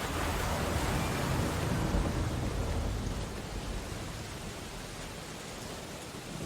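Storm ambience of steady rain with a deep swell that comes in suddenly at the start, is loudest about two seconds in and dies back by about four seconds.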